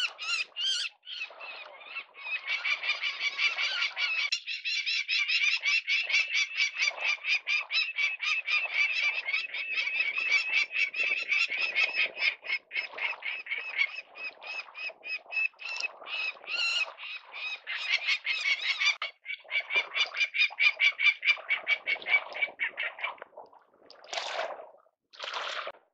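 Peregrine falcon giving its harsh alarm call, a long rapid run of repeated notes at about five a second, the adult defending its cliff nest against an intruder. The calling breaks off briefly about three-quarters of the way through, and a few separate calls follow near the end.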